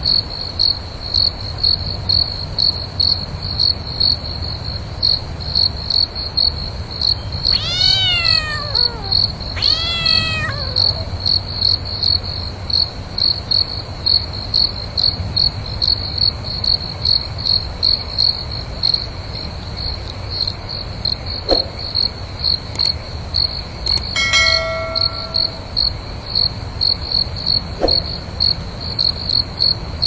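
Crickets chirping in a steady, evenly pulsing high trill, with two drawn-out cat meows falling in pitch about eight and ten seconds in.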